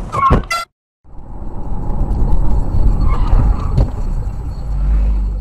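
Dashcam audio of a car driving: a steady low rumble of engine and road noise heard from inside the cabin, with a sharp knock near the end. It begins after a few sharp clicks and a short drop to silence.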